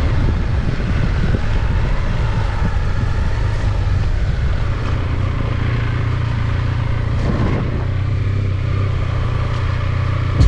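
Motorcycle running at a steady speed while riding, a constant low drone with a rushing noise over it.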